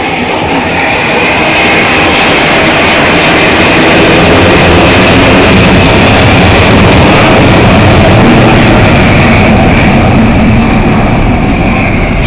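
Jet fighter aircraft flying past low, a loud engine roar with a high whine that swells over the first few seconds, holds through the middle and eases off slightly near the end.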